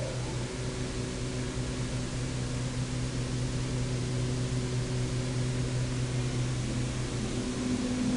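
Rebuilt wheel blast machine running: a steady motor hum over a broad hiss, with a second, slightly higher hum coming in near the end.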